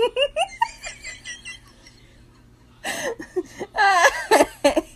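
A person laughing in quick bursts, dying down about a second and a half in, then laughing again louder from about three seconds in.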